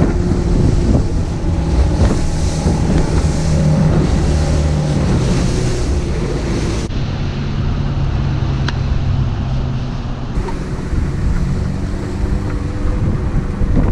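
Outboard motor of a 17 ft Boston Whaler running steadily through rough chop, with waves slapping and splashing against the hull and wind buffeting the microphone.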